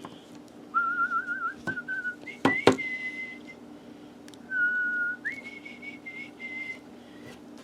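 Whistling of a few held notes, the first with a wavering pitch, then higher steady notes and a lower one, over a faint steady hum. A couple of sharp clicks come about two and a half seconds in, the loudest sounds here.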